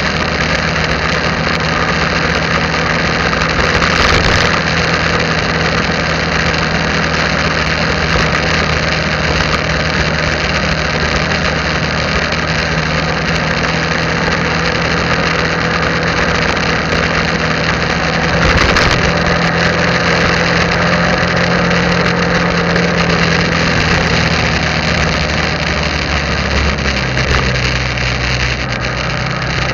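Motorcycle engine running steadily while riding along a road, under wind and road noise on the camera's microphone. Two brief louder rushes of noise come a few seconds in and again past the middle, and the engine note drops near the end.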